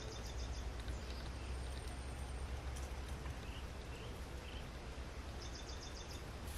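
Outdoor ambience: a steady low rumble and even hiss, with a short train of about five rapid high chirps at the start and another near the end.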